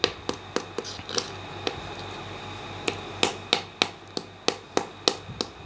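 A round stone pestle rapidly knocking and rubbing on a flat sil-batta grinding stone under water, crushing a lump of rock sugar (mishri), about four knocks a second. The knocking pauses for about a second in the middle, leaving softer rubbing, then starts again.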